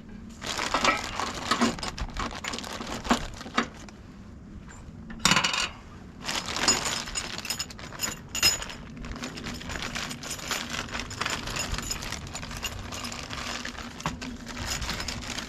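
Steel hitch hardware (grade 8 bolts, nuts and washers) clinking and rattling as it is handled and sorted by hand, with many sharp metallic clicks and brief ringing throughout.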